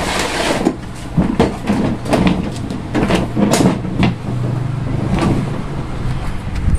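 Hard plastic casing of an air cooler being removed and handled, with repeated knocks and scrapes.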